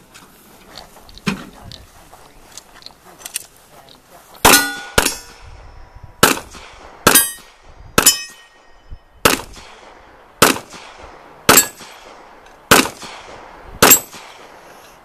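A string of about ten gunshots at steel targets, roughly one a second with the first two close together, starting about four seconds in; several shots are followed by the short ring of a hit steel plate.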